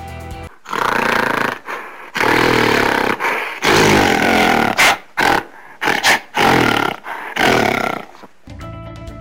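An animal's recorded calls: a series of loud, rough cries with short pauses between them, set between short stretches of music.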